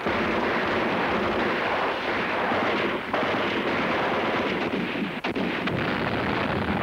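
Battle sound effects: a continuous din of gunfire and explosions, with a few sharp shots standing out about three and five seconds in.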